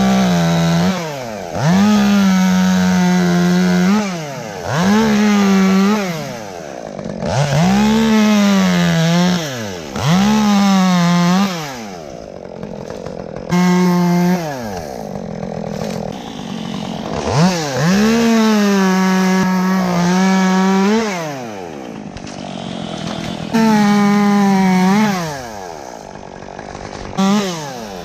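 Two-stroke chainsaw making the first cuts in a tree, revved to full throttle again and again in bursts of one to three seconds, each held at a steady high pitch, then dropping back toward idle between cuts.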